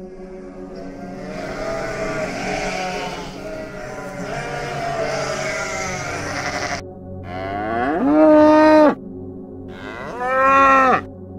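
A flock of sheep bleating together in a dense overlapping chorus, then, about seven seconds in, two loud, drawn-out moos from cattle, the first rising and then held.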